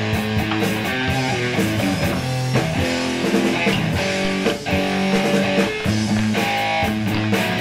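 Guitar-led background music, with plucked guitar notes over a steady beat.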